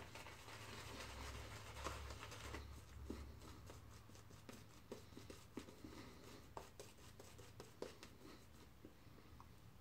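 Faint scrubbing of a synthetic shaving brush working lather over a bearded face, with scattered small wet clicks.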